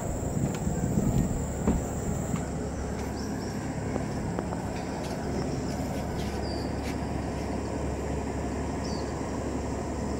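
Steady low diesel drone of a river tugboat engine towing a barge, under a constant high insect whine. Two short chirps come in the second half.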